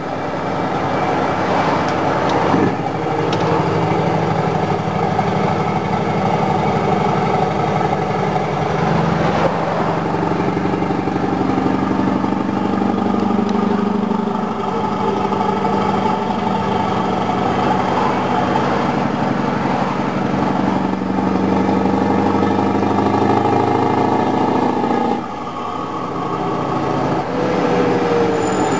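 Scania 164 580's V8 diesel engine pulling steadily at around 1,400 rpm, heard from inside the cab, its drone shifting in pitch a few times. The loudness drops suddenly a few seconds before the end.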